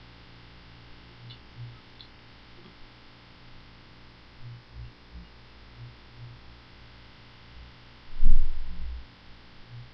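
Low steady electrical hum of a recording setup with scattered faint low blips, and one short low-pitched thump about eight seconds in, lasting under a second.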